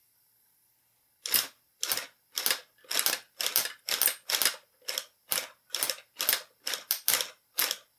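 3D-printed single-cylinder four-stroke engine, fed from a gas torch and fired by a sparker, giving sharp pops about two a second, starting about a second in, without catching and running.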